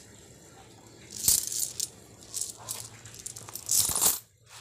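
Coins clinking and jingling in a hand in three short bursts as they are counted and put into a fabric coin purse.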